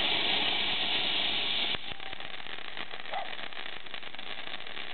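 A firework hissing steadily, cutting off suddenly about two seconds in and leaving a quieter background hiss.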